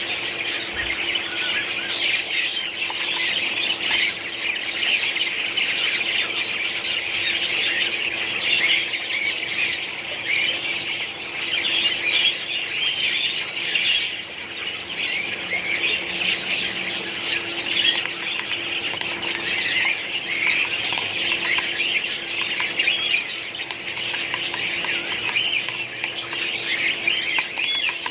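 A colony of budgerigars chattering and chirping continuously, many birds calling over one another at once.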